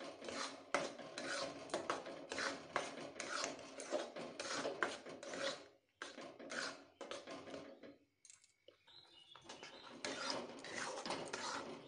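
Metal spatula scraping and stirring thick reduced milk (khoa) in a steel kadai, in repeated strokes about twice a second, with a short stop about six seconds in and a quieter stretch just after eight seconds. The milk is nearly khoa but not yet firm.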